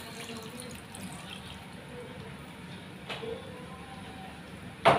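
Water poured from a cup into a pot of browned chicken and pork pieces, splashing over the meat. A light knock about three seconds in, and a sharp, louder clank near the end.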